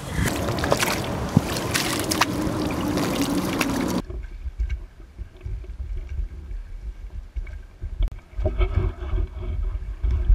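Oars paddling and splashing in river water as an inflatable dinghy is rowed, over a low rumble of wind on the microphone. The sound drops suddenly about four seconds in, then comes back in uneven surges.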